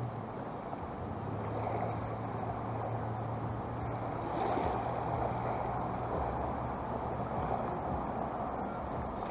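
Small waves lapping and washing at the water's edge, swelling about halfway through, over a steady low hum.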